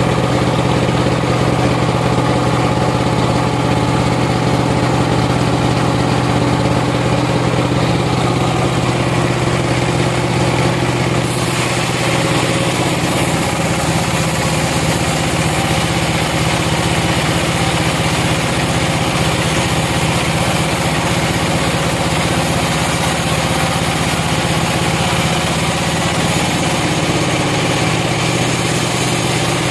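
Sawmill machinery running steadily with a low engine-like hum. About eleven seconds in, a higher hiss joins and carries on.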